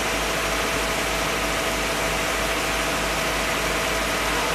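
Steady hiss of a rain machine's water spray, with an engine running evenly underneath it and a single steady hum.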